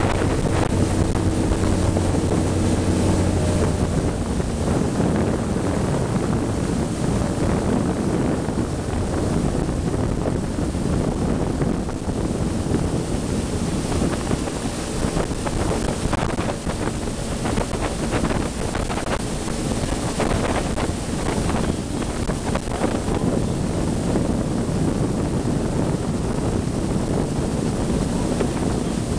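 Wind buffeting the microphone over open lake water, with choppy water washing. A low steady hum sounds under it and stops about four seconds in.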